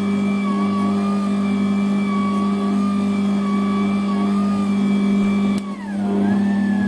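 Electric stand mixer motor running steadily, its beater turning in a stainless steel bowl: a steady hum with a whine above it. About five and a half seconds in, the motor's pitch drops and settles lower.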